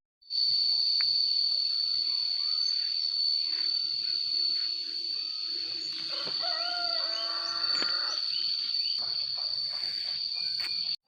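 Insects keep up a steady, high-pitched drone in the morning countryside, with small bird chirps over it. A run of short pitched animal or bird calls comes about six to eight seconds in.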